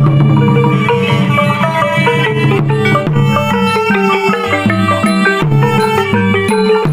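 Khmer pinpeat ensemble playing traditional music: a dense run of quick pitched notes from tuned percussion over drums and a low sustained tone.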